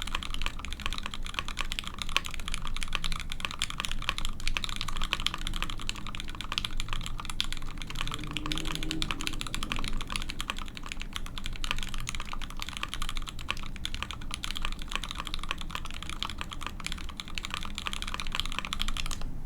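Fast, continuous typing on a Monokei Kei R1 HHKB-layout mechanical keyboard with an aluminium plate, lubed Gateron Mochi switches and GMK keycaps: a dense, even stream of keystroke clacks.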